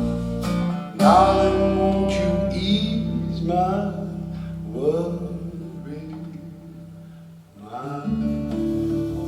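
Acoustic guitar strumming chords over a bass line in an instrumental passage of a slow acoustic rock song. There are several strong strums that ring and fade; the music thins out briefly before a fresh strum near the end.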